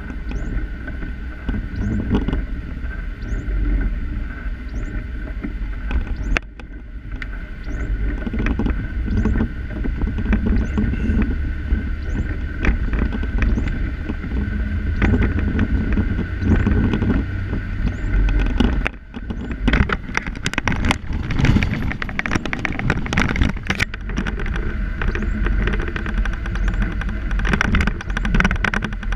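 Inside a moving car on a wet road: steady engine and tyre rumble, with rattling and clicking in the cabin that gets busier about two-thirds of the way through.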